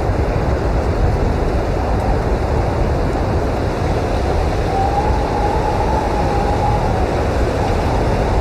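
Blizzard wind blowing hard and steadily, a dense rushing noise, with a faint whistling howl that rises and falls from about four to seven seconds in.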